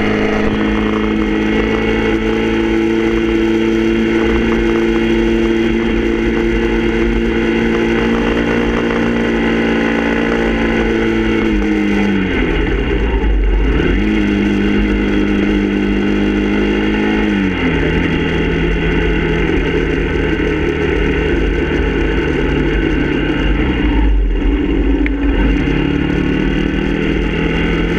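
Motorcycle engine running at a steady cruise, heard from on the bike with a constant wind rumble. About halfway through, the engine note drops away and climbs back, as the rider eases off and opens the throttle again. It then settles at a lower pitch and dips and rises once more near the end.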